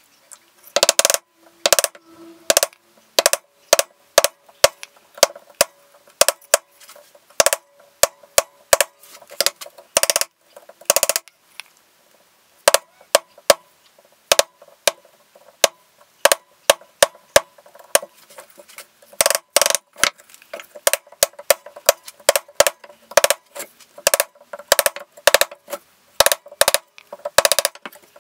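Wood chisel struck over and over, chopping a hexagonal recess into plywood for a nut: sharp, irregular taps about two a second, with a brief lull about twelve seconds in.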